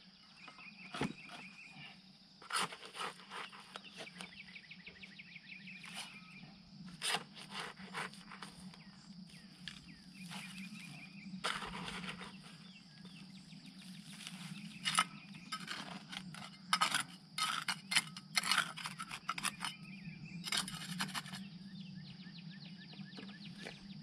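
Small garden shovel scraping and dirt being packed into concrete block hollows: irregular scrapes and rustles, busiest in the second half, over a steady high-pitched insect drone with occasional short chirping trills.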